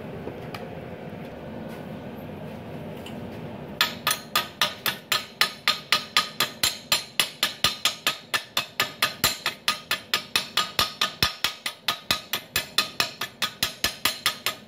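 Steel chipping tool rapidly tapping a fresh stick-weld bead on a steel flat bar, knocking off the slag. The taps start about four seconds in and go on evenly at about three to four a second.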